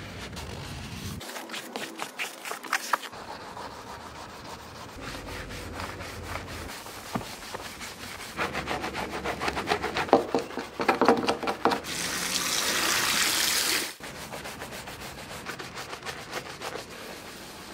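A cloth wiping a leather car seat, then stiff brushes scrubbing foamed car carpet and a floor mat in rapid back-and-forth strokes. Partway through, a loud steady hiss lasts about two seconds and cuts off suddenly.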